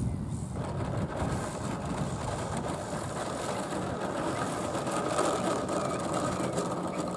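Radio-controlled aerobatic model airplane's motor running steadily at low power while the plane rolls along the runway.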